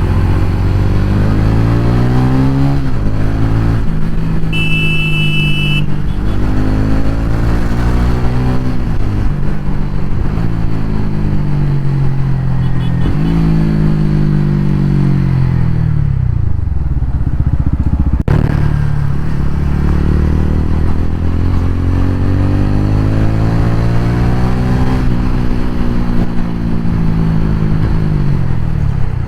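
TVS Ronin 225's single-cylinder engine under way, its revs climbing and dropping again and again as the rider shifts through the gears. Partway through, the engine winds down as the bike slows, then pulls up through the gears again. A horn beeps briefly about five seconds in.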